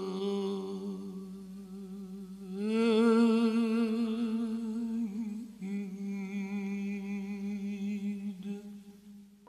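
Unaccompanied male Persian classical voice singing avaz in dastgah Homayoun: three long held phrases with wavering, ornamented pitch. The voice drops away just before the end.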